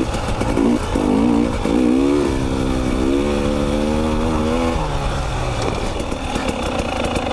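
2020 KTM 300 XC TPI two-stroke dirt bike engine running on the trail, its pitch rising and falling with the throttle, then dropping lower about five seconds in. A run of sharp clicks and knocks near the end.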